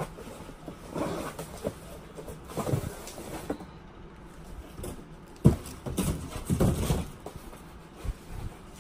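Rustling and knocking as packaging and items are handled on a table, with one sharp thump about five and a half seconds in.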